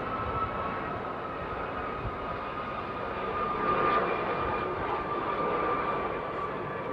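Red Arrows BAE Hawk jets flying past: a steady jet roar with a whine that slowly falls in pitch. It swells to its loudest about four seconds in.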